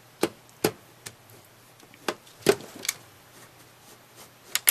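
Optical drive being slid into a computer case's drive bay: a series of sharp plastic-and-metal clicks and knocks, about eight, irregularly spaced, with two close together near the end.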